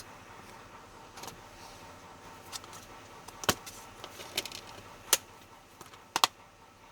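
A scattered series of sharp clicks and light taps, about six over several seconds. The loudest come a little after three and five seconds in, with a quick double click near the end.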